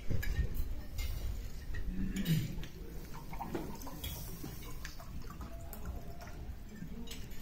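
Dining-room ambience: scattered light clinks of cutlery and dishes over a low rumble, with a dull low thump about the start.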